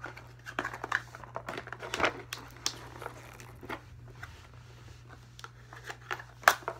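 Cardboard keyboard box being handled and opened by hand: irregular rustling, scraping and clicking of the cardboard and its flaps, with a sharp knock about six and a half seconds in. A steady low hum runs underneath.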